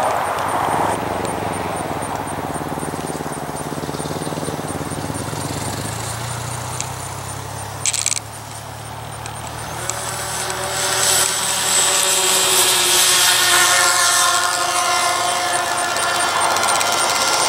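Radio-control model airplane's motor running at low power on the ground. About ten seconds in it rises in pitch and grows louder as it goes to full power for the takeoff run and climb-out.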